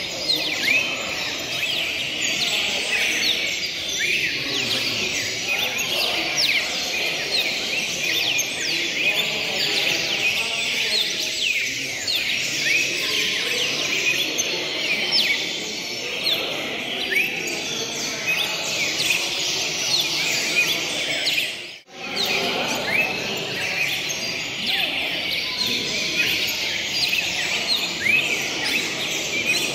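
Many songbirds singing and chirping at once in a dense, overlapping chorus of quick high notes, with no pause, birds competing against each other in song. The sound drops out briefly about two-thirds of the way through.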